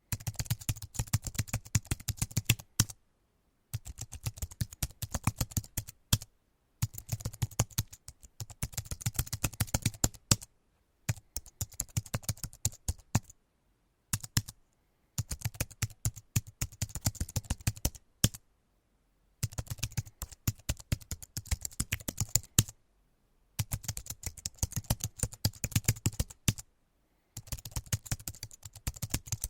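Typing on a computer keyboard: quick runs of key clicks, several a second, in bursts of a few seconds broken by short pauses.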